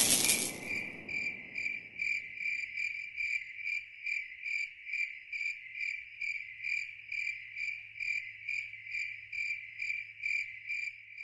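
Crickets chirping in a steady, even rhythm, about two or three chirps a second, over a faint low hum. At the start the tail of a loud rushing noise dies away within the first half second.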